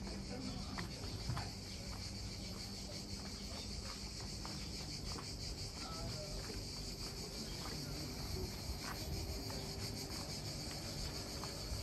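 Steady high-pitched buzzing of cicadas, unbroken throughout, with a few faint clicks.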